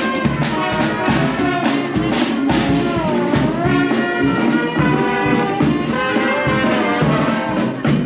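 Street brass band playing: a sousaphone bass line under trombones and trumpets, with a steady drum beat.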